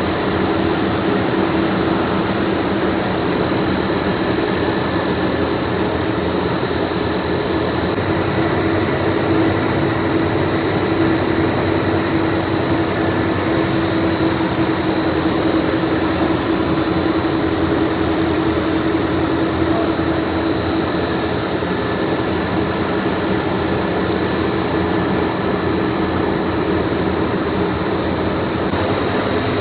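Factory machinery on a uPVC pipe production line running steadily: a constant mechanical drone with a thin, steady high whine over it.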